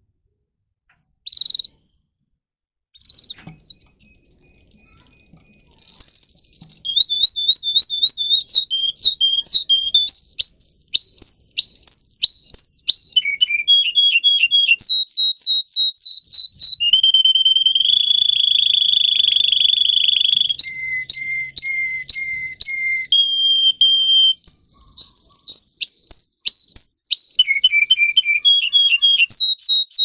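Domestic canary singing. After one brief chirp, a long unbroken song of fast trills, each a quick run of the same high whistled note, changing pitch every second or two, with one steady trill held for about four seconds past the middle.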